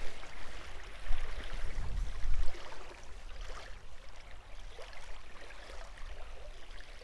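Lakeside outdoor ambience: wind rumbling on the microphone for the first two and a half seconds, then a quieter steady hiss with a few faint rustles.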